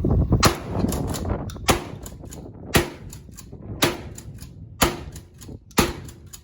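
Gunfire: six sharp shots about a second apart, with fainter shots between them.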